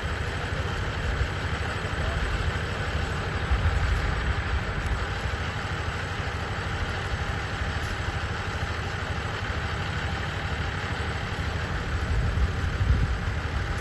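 Fire engine's engine running steadily to drive the pump for the hoses. It makes a continuous low rumble with a hiss over it, swelling slightly twice.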